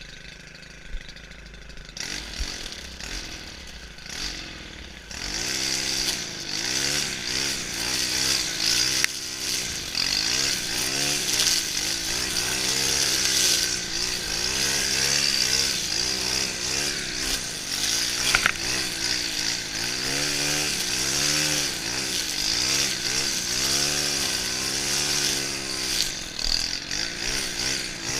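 Stihl FS 131 brushcutter's 36cc engine running low for about five seconds, then speeding up and running hard, its pitch rising and falling over and over as the cutting load comes and goes while trimming grass. A single sharp click about 18 seconds in.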